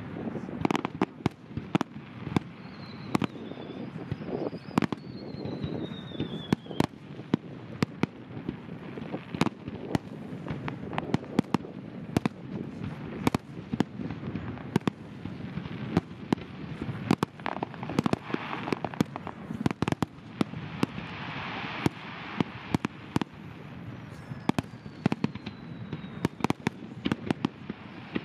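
Fireworks display: a dense run of sharp bangs from bursting aerial shells over a steady rumble. Two high whistles fall in pitch, one a few seconds in and one near the end.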